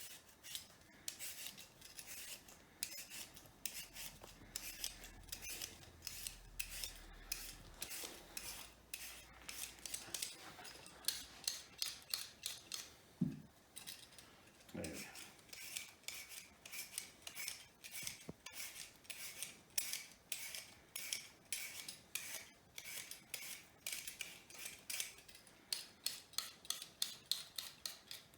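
A potato being peeled: short scraping strokes of a peeler or knife over the skin, repeated about twice a second.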